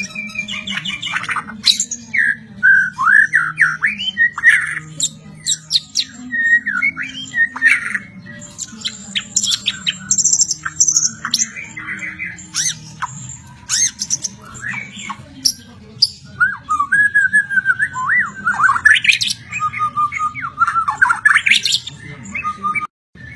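White-rumped shama singing a long, varied song of rapidly rising and falling whistles, trills and sharp chirps, with hardly a pause.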